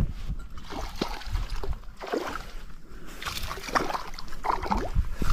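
Creek water splashing and trickling, an uneven run of small splashes that grows busier in the second half.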